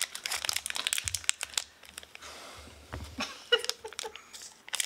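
Foil wrapper of a Pokémon card booster pack crinkling as it is handled, with dense sharp crackles for the first second and a half, then quieter, and scattered crackles again later on.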